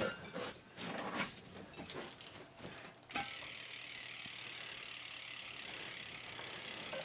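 Scattered clicks and knocks of the rear wheel being fitted, then from about three seconds in a steady, even, rapid ticking of the trike's rear hub freewheel pawls as the wheel spins.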